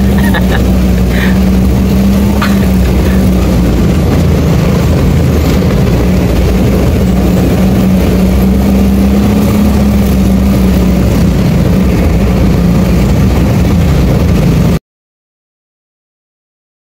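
Truck engine running steadily while driving, with a constant low drone, heard from inside the cab. The sound cuts out to complete silence near the end.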